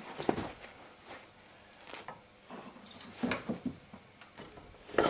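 A man straining and breathing hard as he presses with his foot on a breaker bar to break loose a seized crankshaft pulley bolt on a Honda D17A engine. Scuffs and small knocks from the wrench, then a loud, sharp knock near the end.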